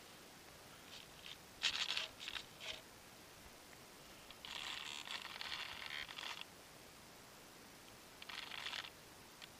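Short scraping and rustling bursts picked up through the glider's foam airframe as it is handled: a few quick ones about two seconds in, a longer stretch of about two seconds in the middle, and another short one near the end.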